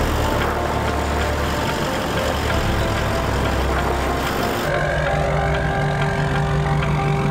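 Four-wheel-drive engine running at low revs as the vehicle crawls over a rough dirt track. About five seconds in the sound changes to a steadier, higher hum.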